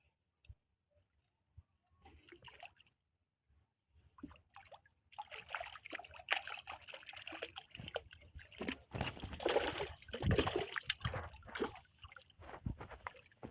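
Water splashing and sloshing close by in irregular bursts, starting about five seconds in and loudest a little after the middle.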